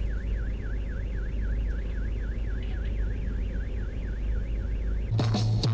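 Car alarm sounding a fast electronic warble, its pitch sweeping up and down about five to six times a second, over a steady low vehicle rumble. It cuts off about five seconds in.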